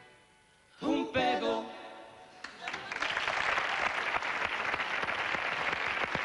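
A brief hush, then a short sung closing phrase about a second in, and from about two and a half seconds steady audience applause.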